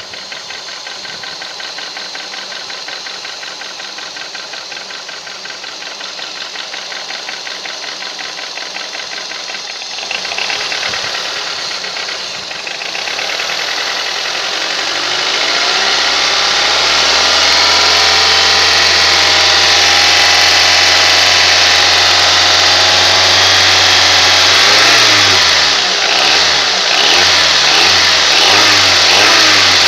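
Honda K20A four-cylinder engine running with a fast, even knocking at low revs. About halfway through the revs rise and hold higher, then are blipped up and down several times near the end. The knock persists with the accessory belt removed, so the owner rules out the belt-driven accessories; its cause is unknown.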